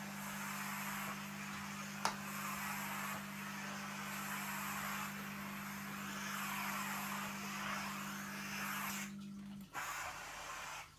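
A steady low hum with a fluctuating hiss over it and a single sharp click about two seconds in; the hum cuts out shortly before the end.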